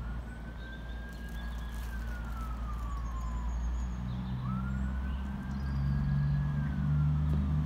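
An emergency-vehicle siren wailing, two slow rising-and-falling cycles, over the low rumble of an approaching train whose engine hum grows louder from about halfway through.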